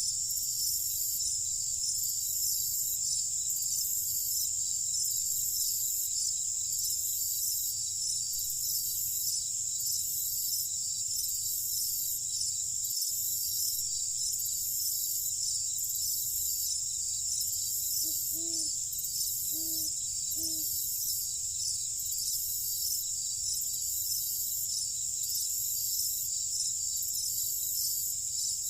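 Night chorus of crickets, a steady high-pitched trilling with a higher layer that pulses about once a second. About two-thirds of the way through, a few short low calls sound.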